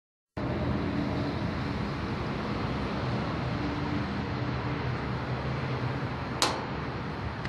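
Outdoor air-conditioning condensing unit running, a steady hum with fan and air noise, and a single sharp click about six seconds in.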